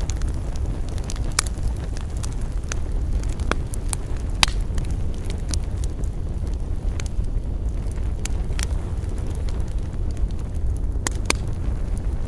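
Wood campfire burning with a steady low rumble of flame and irregular sharp crackles and pops, a few louder snaps about a second and a half in, about four seconds in and near the end.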